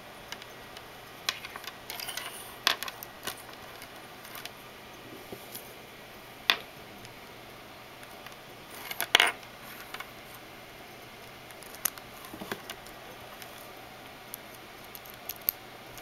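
Handling noise as a 2.5 mm jack adapter cable is plugged into a phone and fitted to earphones: scattered small clicks, taps and rubs of plastic and metal parts, the loudest a sharp click about nine seconds in.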